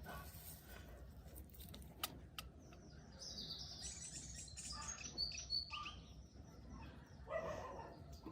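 Faint birds chirping, with a few light clicks about two seconds in.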